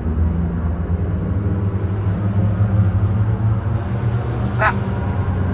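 Steady low rumble inside a moving car's cabin, with one brief high call about four and a half seconds in.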